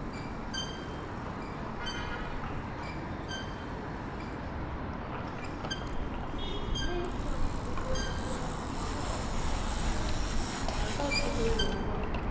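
Outdoor city street ambience: a steady rush of traffic noise that swells toward the end, with short high-pitched ticks or chirps repeating throughout.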